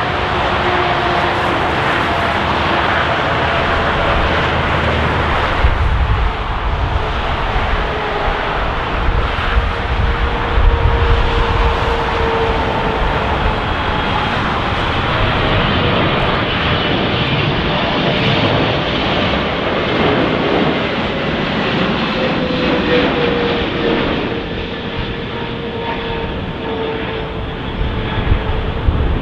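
Boeing 777's twin jet engines passing close by: a loud, steady jet rumble with whining fan tones that slowly slide in pitch, easing off a little near the end.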